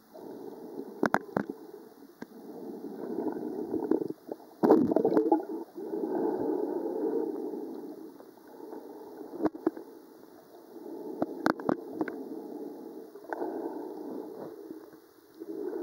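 Muffled sloshing and gurgling of water around a camera filming in shallow sea water, swelling and fading in slow surges, with a few sharp clicks and knocks along the way.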